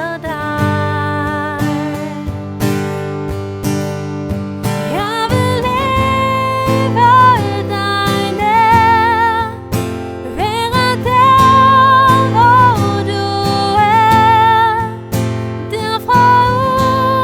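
A Danish praise song sung with vibrato over a strummed acoustic guitar.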